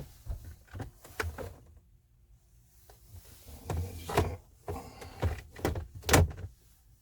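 Clicks, knocks and light rattles of hands working on a van dashboard as fittings are handled and moved, with a louder clunk a little after six seconds in.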